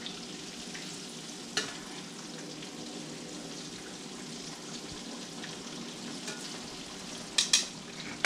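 Breaded fish frying in hot oil in a cast iron skillet, a steady sizzle. Sharp clicks of the utensil against the pan come about one and a half seconds in and a few times near the end as the pieces are turned.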